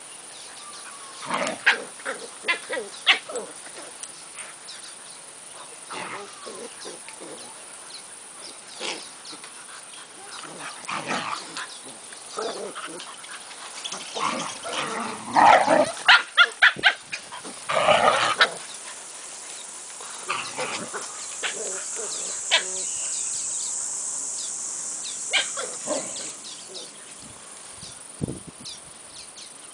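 A Siberian Husky and an Australian Cattle Dog puppy at rough play, giving short bursts of barks and play noises, loudest and most frequent about halfway through.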